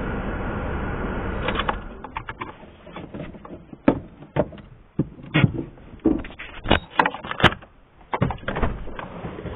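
Steady running noise of a car heard from inside the cabin stops about a second and a half in. Irregular clicks and knocks from inside the car follow, about a dozen of them, spaced unevenly.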